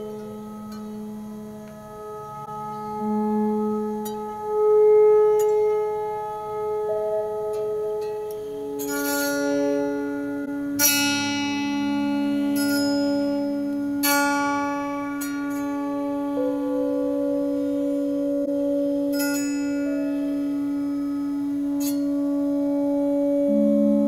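Electric autoharp played with effects: long, overlapping held tones form a drone. From about nine seconds in, a handful of bright strikes across the strings ring out over it.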